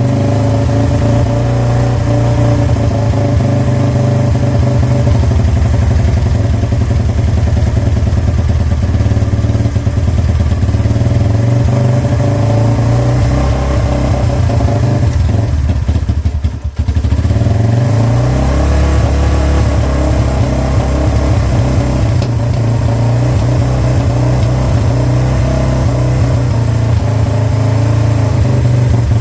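Lexmoto Venom 125's single-cylinder four-stroke engine running on choke just after a cold start, its new thumb-screw mixture screw set 2.5 turns out. About sixteen seconds in it stumbles and nearly dies, then picks up again; the owner found it was not running right because the fuel tap was off.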